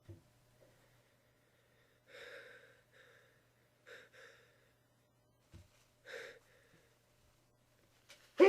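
A person's short, faint breaths and gasps, three of them about two seconds apart, building up to a sneeze, then a sharp, loud rising in-breath near the end as the sneeze begins.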